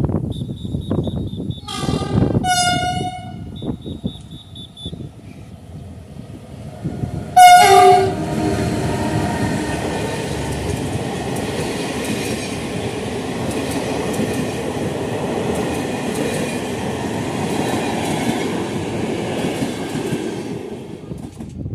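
ONCF passenger train hauled by electric locomotive E-1454 sounding its horn as a greeting, with two-tone blasts about two seconds in and a louder short blast about seven seconds in. The train then passes close by, with steady wheel-and-rail noise for about thirteen seconds that dies down near the end.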